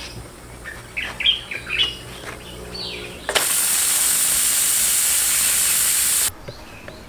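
Pressure cooker letting off steam: a loud, steady hiss starts suddenly about three seconds in and stops abruptly about three seconds later, the pressure being vented at the end of cooking before the lid comes off. Before it, birds chirp a few times.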